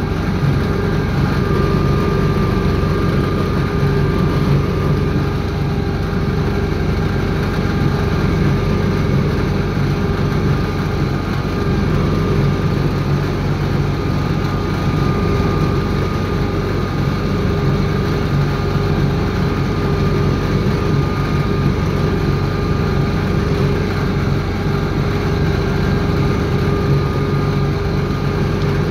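Universal U650 tractor's four-cylinder diesel engine running steadily under load, pulling a reversible plough through the soil.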